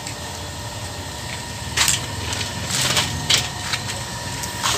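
A few short splashes in pond water, about four in all from two seconds in to near the end, over a steady low hum.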